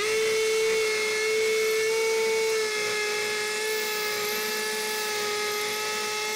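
Bosch GSB18V-1330C 18V brushless hammer drill boring a masonry bit into concrete under full load: a steady high whine that starts abruptly and sags slightly in pitch and loudness a few seconds in.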